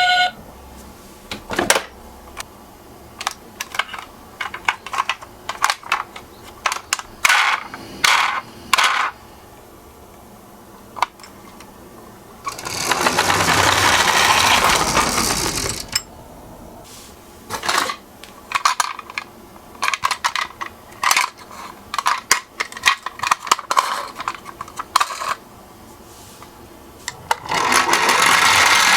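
Die-cast toy cars clicking and clinking as they are handled and set down. Twice, for about three seconds each, a minicar runs down a slope with a steady rolling rush, first about halfway through and again near the end.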